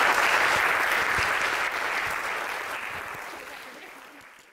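Audience applauding at the end of a talk, the clapping steady at first and then fading away toward the end.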